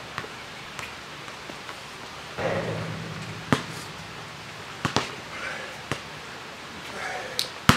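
Basketball bouncing on an asphalt court: single sharp bounces at uneven spacing, about one to two seconds apart, the loudest near the end. A voice is heard briefly about two and a half seconds in.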